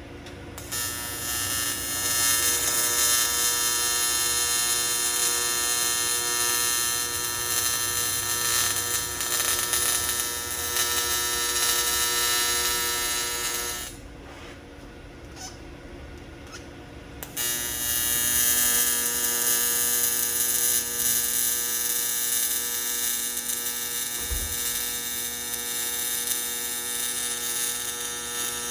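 TIG welding arc on aluminum, giving a steady electrical buzz with hiss. It runs in two long welds with a pause of about three seconds between them.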